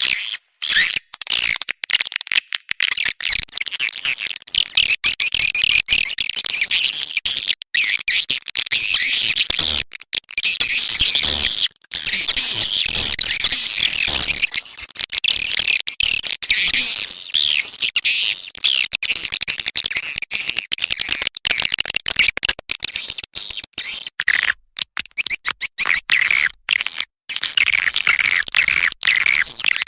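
Swiftlet call-sound recording: a dense, continuous chatter of high twittering chirps from a flock of swiftlets, broken by many brief, sharp gaps. This is the kind of lure track played in swiftlet houses to draw the birds in to nest.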